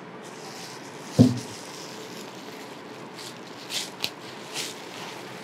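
Plastic bubble-wrap sleeve crinkling in a few short rustles as it is pulled off a lens, after a single soft thump about a second in.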